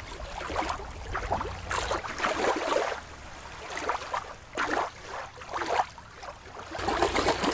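Water lapping and splashing in uneven small rushes.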